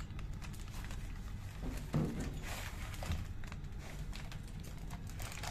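Light metal clicks and knocks as the rotary part of a pump mechanical seal is drawn out of its gland along with the shaft sleeve, with one louder knock about two seconds in.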